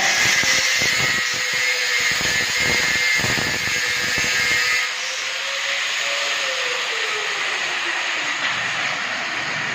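Angle grinder cutting through the steel wires of a wire-mesh cable tray, a loud hiss over a steady motor whine. About five seconds in the cutting stops, and the whine falls as the disc winds down.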